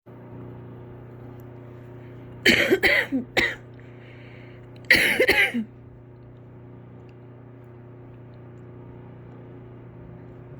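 A sick, congested person coughing in two bouts: three or four coughs in quick succession about two and a half seconds in, then another bout at about five seconds. A steady low hum runs underneath.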